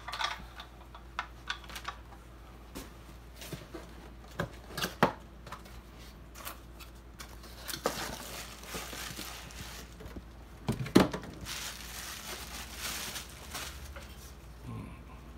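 Paper and cardboard packaging rustling and crinkling as a radio-control transmitter is unpacked from its box, with scattered light knocks and clicks of handling. A sharper knock comes about eleven seconds in.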